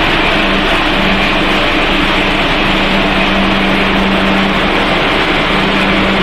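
Machinery of a snack pellet extrusion line running: a loud, steady mechanical drone with a constant low hum.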